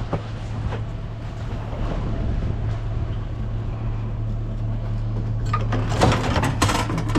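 A steady low mechanical hum, like a running engine, under a rattly noise, with a few sharp knocks and rattles from about five and a half seconds in.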